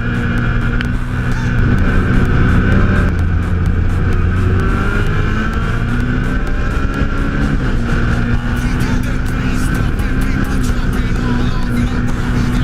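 Off-road race car engine running hard, its pitch rising and falling as the revs change.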